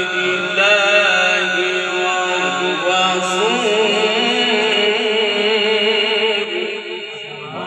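A man reciting the Quran in the melodic tajweed style, drawing out one long ornamented phrase on a single breath, the pitch wavering and sliding, sung into a microphone. The line fades away near the end.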